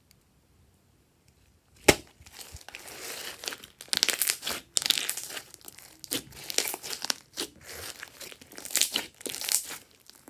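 Glossy slime being squeezed and stretched by hand, making irregular crackling, crinkly pops. It starts with one sharp snap about two seconds in, after near silence.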